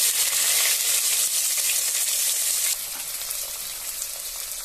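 Chopped onions sizzling as they fry in hot oil with whole spices in a kadai. The sizzle drops noticeably in level a little under three seconds in.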